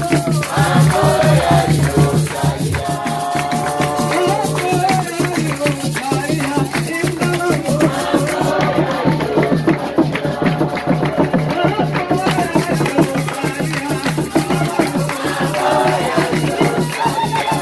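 Choir singing a worship song together, with a rattle keeping a fast, steady beat.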